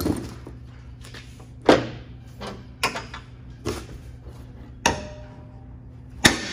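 A series of about six sharp knocks and bangs, irregularly spaced about a second apart, over a low steady hum.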